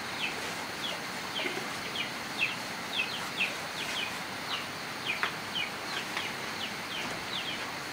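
A bird chirping over and over: short, high, falling chirps, about two a second, over a steady background hiss.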